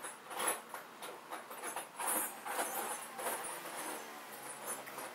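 Irregular rustling and scuffing with light knocks, the noise of movement close to the microphone as the camera is carried about.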